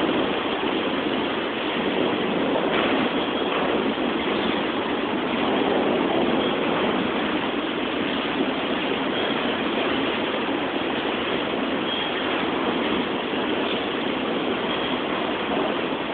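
Freight cars of a slow CSX train rolling past: a steady noise of wheels on rails, with a few faint, brief high squeaks now and then.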